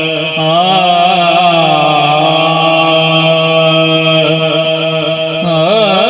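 A man singing Islamic devotional verse (naat) into a microphone through a sound system. He holds long notes and ornaments them with wavering runs about a second in and again near the end.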